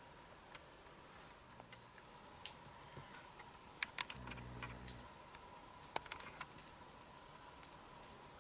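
Sparse crackles and pops from a smouldering campfire, a few of them sharper. A short low snore comes about halfway through.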